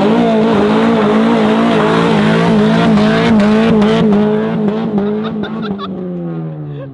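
Neon's four-cylinder engine held at high revs in a burnout, its pitch wavering as the front wheels spin on loose dirt. Near the end the engine note fades and drops in pitch as the car pulls away.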